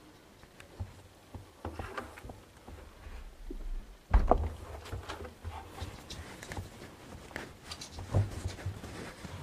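Close rustling and irregular knocks, with a heavier thump about four seconds in: handling noise from a camera and cloth being moved right by the microphone.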